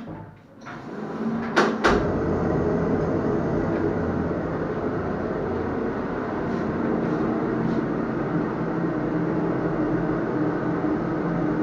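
Two sharp clicks, then a machine starting up and running steadily with a low hum and a constant rushing noise.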